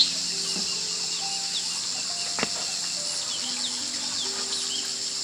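Honey bees flying close by the hive, humming at shifting pitches as they pass, over a steady high drone of insects and a few small bird chirps. A single sharp click about halfway through.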